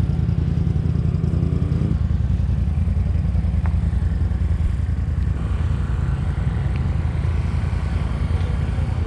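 An off-road vehicle engine running steadily at low revs, a deep continuous rumble.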